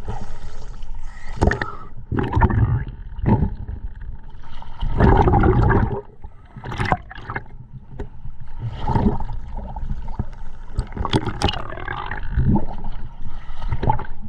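Scuba diver breathing underwater through a regulator: irregular rushes of exhaled bubbles every second or two, the longest about a second, with quieter stretches between breaths.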